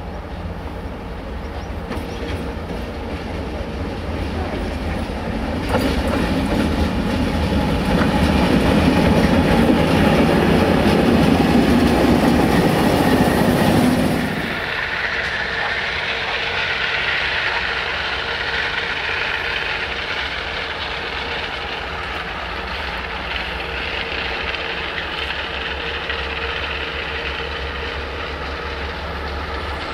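MLW diesel-electric locomotive approaching and passing on the rails, growing louder to a peak with clickety-clack from the wheels, then cut off abruptly about 14 seconds in. Then a steadier, quieter sound of diesel locomotive engines running.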